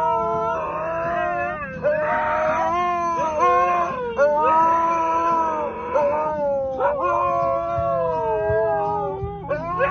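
A dog howling in a series of long, wavering notes, each a second or two long with short breaks between.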